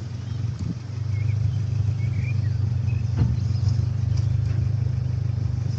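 Car engine running at low speed, a steady low hum, with a few faint high chirps between one and three seconds in.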